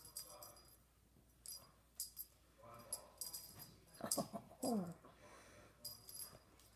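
Siamese cat meowing twice, about four seconds in, each call falling in pitch, over light rustles and clicks of a feather wand toy being played with.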